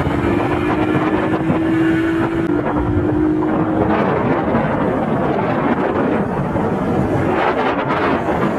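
Several small motorcycles riding together, their engines running steadily, with wind buffeting the microphone.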